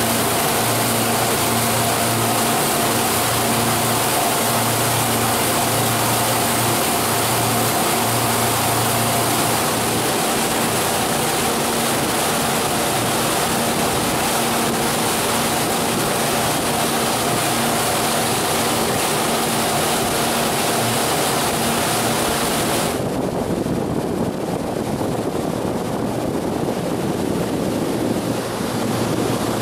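Sea Ray Sundancer cruiser running at speed: a steady MerCruiser engine drone under the rush of the wake and water. About three-quarters of the way through, the sound changes abruptly: the engine hum drops away and wind rumbles over the microphone.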